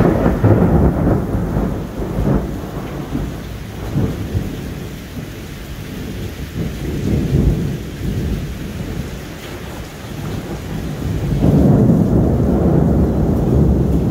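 Thunder rumbling during a rainstorm. The rumble is loud at first, dies down through the middle, and builds again about eleven seconds in.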